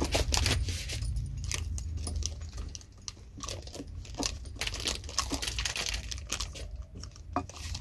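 Kitchen utensils being handled: scattered light metallic clinks and rattles with some rustling.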